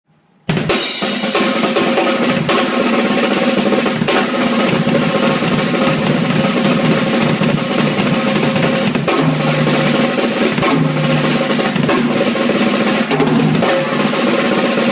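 Drum kit played continuously, starting suddenly about half a second in, with fast snare drum rolls and bass drum strokes.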